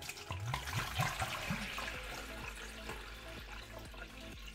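Water poured from a glass jug into a glass tank already holding water, splashing steadily, with a few short rising gurgles in the first second and a half; the splashing eases slowly after that.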